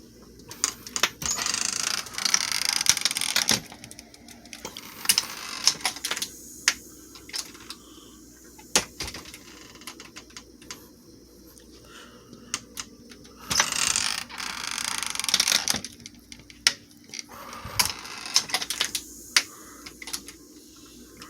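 Aluminium-framed screen door on a pneumatic door closer, opened and let go twice; each time there is a rush of noise and then clicks and knocks of the frame and latch as it swings shut. It shuts fast because the closer's bracket has been moved over, which is thought not to give the closer enough time to latch gently.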